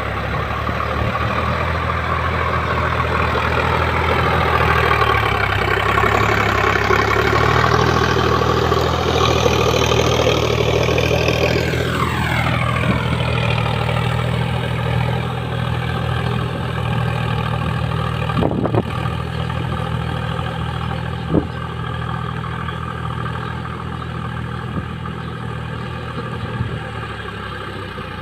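Sonalika 4x4 tractor's diesel engine running steadily while ploughing. About twelve seconds in a whining pitch falls sharply as the revs drop, and the engine settles to a lower steady note, with two short knocks a few seconds later.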